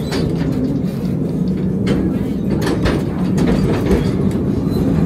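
Calico Mine Ride train cars rolling along the track, a steady low rumble with irregular clacks and rattles.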